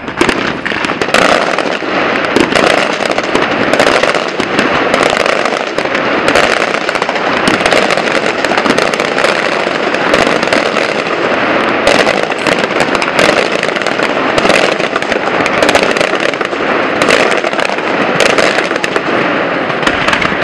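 Fireworks display going off in a continuous barrage: dense crackling with many sharp cracks and pops in quick succession, loud and unbroken.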